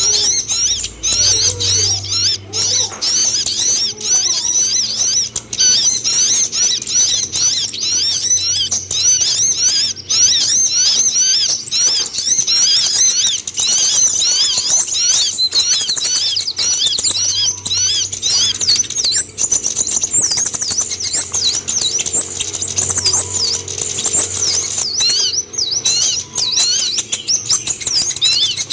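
Van Hasselt's sunbird (kolibri ninja) singing: a fast, continuous run of high, thin chirps and twitters, many overlapping.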